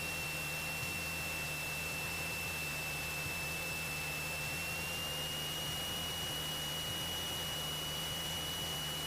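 Cessna 172SP cockpit noise in flight, heard through the headset intercom: the engine and airflow as a steady hiss and low hum, with a thin high-pitched whine that steps up slightly in pitch about halfway through.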